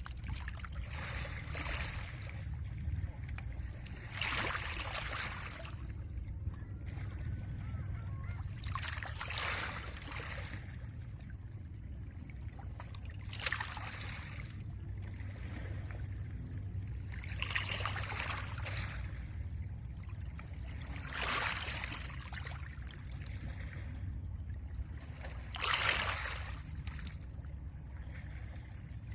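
Small lake waves washing onto a pebble shore, a hissing surge breaking every four seconds or so, over a steady low rumble of wind.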